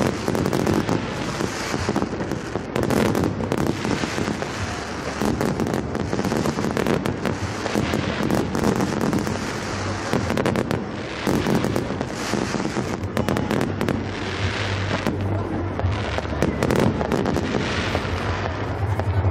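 Fireworks going off in a dense, continuous barrage of bangs and crackles.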